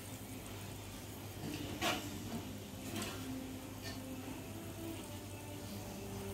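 Water boiling in a clay pot over a gas burner, with a low steady hum, and two short clinks of a metal ladle against the pots about two and three seconds in.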